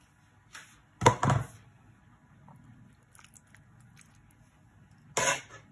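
A metal spoon scooping minced-beef meat sauce and dropping it onto lasagna sheets: a few short sounds, a double one about a second in, the loudest, and another near the end.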